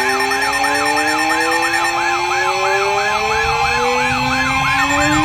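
Siren-like electronic alert tone of an emergency weather broadcast: a pitch rising and falling about three times a second over steady tones and slow upward sweeps, loud and unbroken. It is the attention signal that announces a severe thunderstorm warning.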